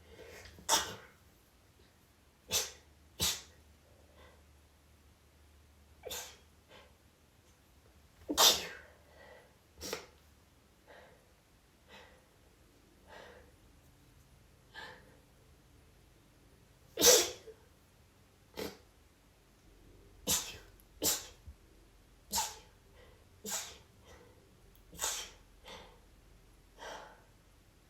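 A woman's quiet little rapid sneezes: about twenty short, sharp sneezes, some coming in quick pairs, with two noticeably louder ones.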